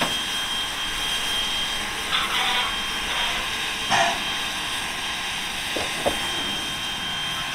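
Steam locomotive W934 standing with a steady hiss of steam, a few short sounds rising over it about two, four and six seconds in.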